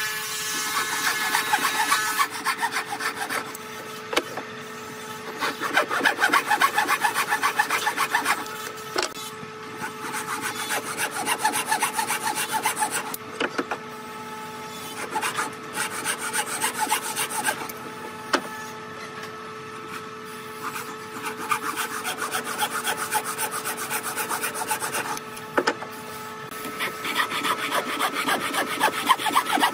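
Wooden frame saw cutting a clamped pine board by hand, in runs of quick back-and-forth strokes with short pauses between them.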